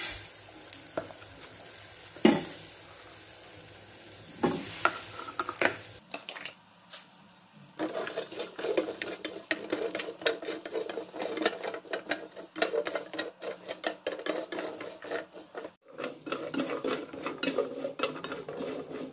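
Whole spices being dry-roasted in a nonstick pan: coriander seed poured in at the start, then shallots, garlic, candlenuts, coriander seed and red chillies stirred and pushed around with a wooden spatula, a dense rattling and scraping that runs on for the second half.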